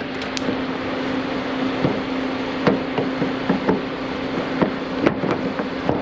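Irregular light knocks and clicks of a replacement door latch assembly being fitted up into place and slid forward inside a car door, over a steady hum.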